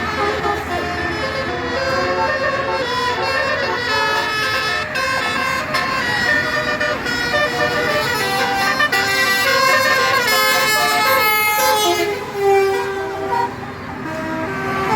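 A Basuri tour bus's telolet horn, the Indonesian multi-tone musical air horn, playing a melody of held notes that step from pitch to pitch, loud throughout and busiest near the end, with a lower long note just before it stops.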